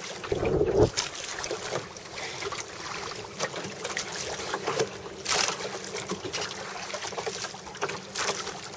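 Choppy sea water slapping and splashing against the hull of a Hankins lifeguard rowboat, with irregular splashes and knocks, the loudest about five seconds in. A low buffet hits the microphone about half a second in.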